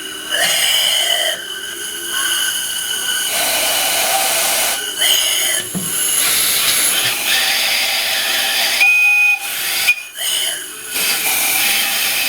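Loud hiss with a high whistling tone, stopping and starting several times with short gaps; a sharper whistle note comes in about nine seconds in.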